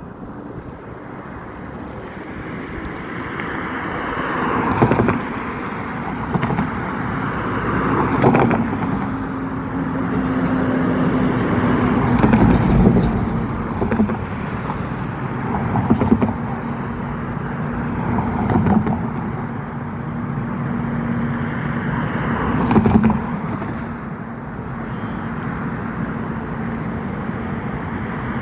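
Road traffic passing, swelling and fading, with a sharp knock every few seconds and a steady low hum through the second part.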